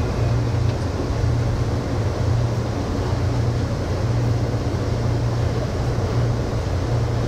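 Amtrak Southwest Chief passenger train running at speed, heard from on board: a steady low rumble with a hiss of wheels on rail.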